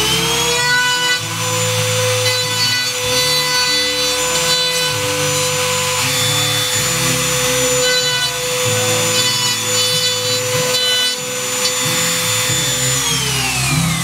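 Woodworking power tool motor spinning up to a steady high whine, running for several seconds with some rubbing and sawing noise from working wood, then winding down near the end.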